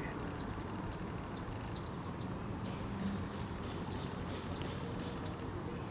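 A small bird giving short, very high chirps at an uneven pace of about two a second, over a faint steady high-pitched background tone.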